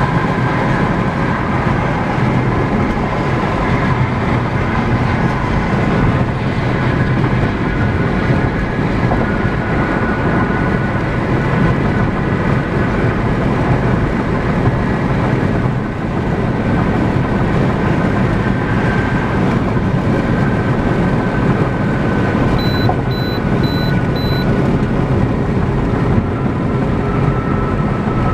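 Steady road and tyre noise with engine rumble heard from inside a car's cabin while driving at highway speed.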